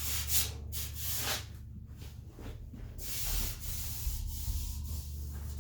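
Sandpaper rubbed in irregular back-and-forth strokes over cured body filler on a steel truck fender, feathering the edges of the filled dents. The strokes ease off about a second and a half in and pick up again about halfway through.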